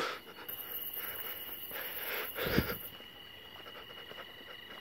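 Crickets chirping steadily, with one brief thump about two and a half seconds in.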